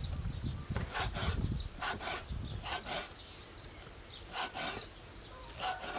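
A steel cleaver cutting squid on a wooden chopping board: its blade knocks and scrapes against the board in quick pairs of strokes, about once a second.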